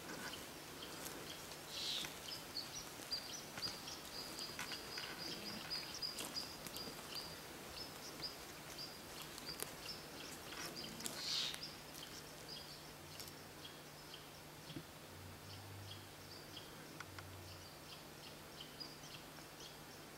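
Small birds chirping repeatedly, short high calls in quick series, with two louder calls. A few faint crackles of footsteps on dry forest litter.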